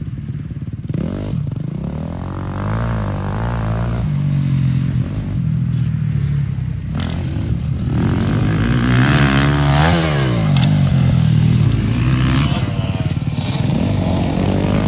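Dirt bike engines revving hard, their pitch climbing and dropping again and again through the gears, growing louder as they come closer. About ten seconds in, one engine's pitch rises while another falls.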